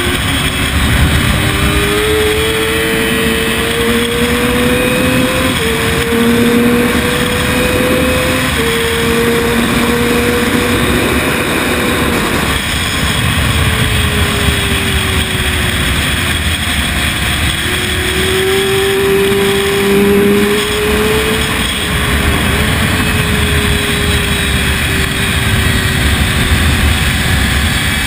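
Sport motorcycle engine at racing speed, heard from on board with heavy wind rush over the microphone. Its revs climb and drop back sharply a couple of times in the first third as it shifts up, then sink away for a few seconds about halfway through and climb again, holding fairly steady near the end.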